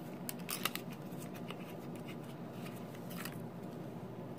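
Light clicks and scrapes of small hard parts being handled by hand, in a cluster early on and again a little after three seconds, over a steady low hum.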